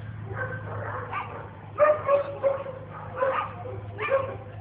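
Dog barking in a run of short, repeated barks, the loudest about two seconds in.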